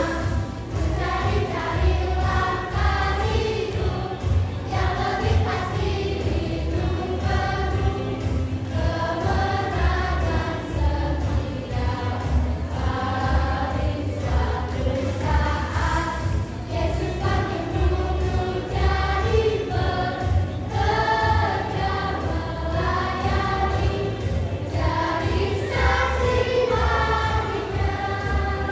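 Children's choir singing a song together, with a steady low beat underneath.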